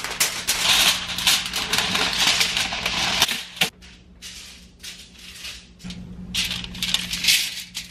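Sheet of aluminium foil crinkling loudly as it is unrolled and smoothed flat by hand, in a long first spell of about three seconds and again near the end.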